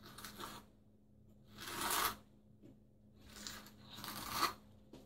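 Small trowel scraping thin-set mortar onto the wall at the tile edge, in four scraping strokes, the one about two seconds in the loudest.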